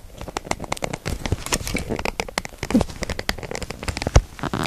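Dense, irregular clicks, taps and scrapes of handling noise as a phone is pushed into a cheap tripod's phone clamp, the phone's own microphone picking up fingers and the mount rubbing against it, with a sharper knock near the end.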